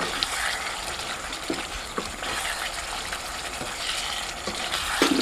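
Thick curry gravy sizzling in a kadai as a spatula stirs it around chicken meatballs, with a few short knocks of the spatula against the pan.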